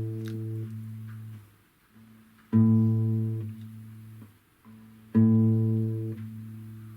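Acoustic guitar's sixth string, fretted at the fifth fret on A (110 Hz), plucked hard and damped after about a second. The open fifth string goes on ringing on the same note by sympathetic resonance until it too is muted. The pluck-and-damp repeats twice more, about two and a half and five seconds in.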